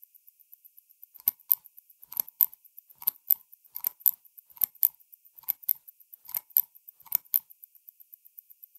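Patek Philippe Aquanaut Travel Time 5164A's time-zone pusher being worked eight times, each press and release giving a sharp metallic double click, about one a second, as the local hour hand jumps an hour at a time. A faint, fast, steady watch ticking runs underneath.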